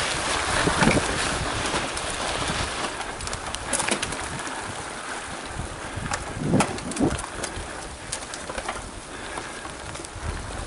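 Mountain bike rolling over a rough dirt forest trail: wind rush over the microphone and tyre noise, with scattered clicks and knocks from the bike. Two short low sounds about two-thirds of the way through.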